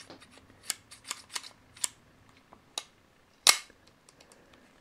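Smith & Wesson 686 revolver being handled with its cylinder open: several light metallic clicks, then one sharper, louder click about three and a half seconds in as the swung-out cylinder is snapped shut into the frame.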